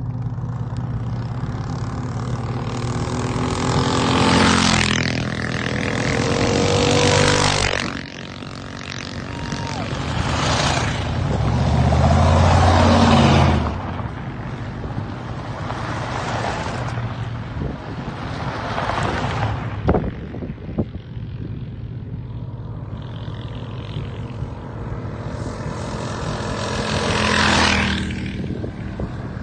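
A line of vehicles, SUVs among them, driving one after another past on a gravel road. Each engine swells and drops in pitch as it goes by, over a steady hiss of tyres on gravel, with the loudest passes about four, seven, twelve and twenty-seven seconds in.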